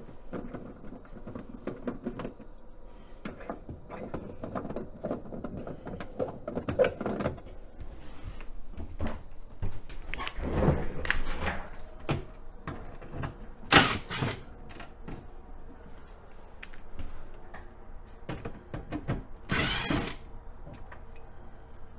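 Irregular plastic clicks, knocks and scraping from working at the clipped-on back panel inside a freezer compartment, with the clips not releasing. A sharp knock comes about two-thirds of the way in and a short scrape near the end.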